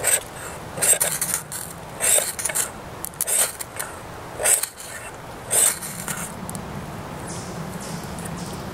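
Spyderco Bushcraft knife blade scraping and shaving wood in short, irregular strokes, about eight of them in the first six seconds. After that there is only a faint steady low hum.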